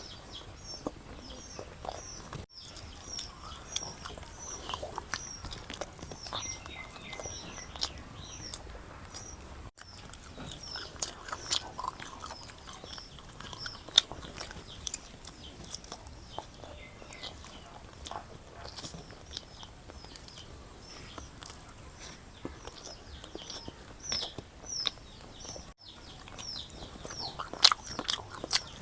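A person chewing and biting food with mouth clicks and occasional louder crunches, over a steady run of short, repeated high chirps in the background.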